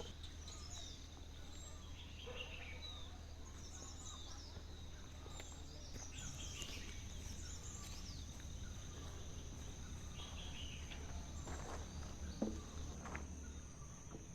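Forest ambience: a steady high-pitched insect drone with scattered short bird chirps, and a sharp click near the end.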